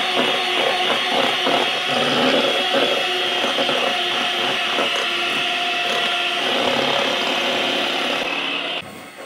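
Electric hand mixer running, its beaters whipping cream in a steel bowl with a steady motor whine. It is switched off suddenly near the end.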